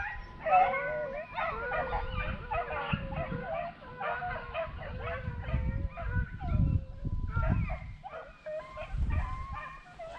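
A pack of beagles baying on a rabbit's trail: many short, overlapping yelps and bawls at different pitches, one after another.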